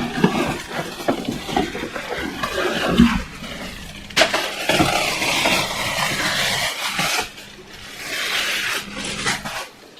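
Rustling and knocking of packaging being handled while a hood hair dryer is unpacked, with a sharp click about four seconds in.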